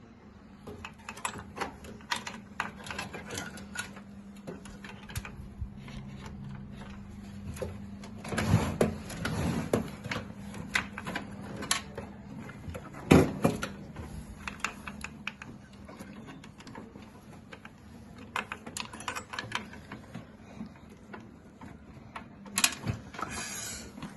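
Scattered clicks, taps and knocks of computer parts and screws being handled and fitted during PC assembly, with one louder knock about halfway through. A faint steady hum runs underneath.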